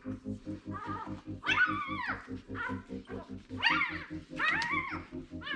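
Newborn greyhound puppy squealing: a string of about six short, high cries that rise and fall in pitch. Background music with a steady beat runs under it.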